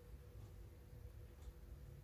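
Near silence: quiet room tone with a faint steady hum and a faint tick about once a second.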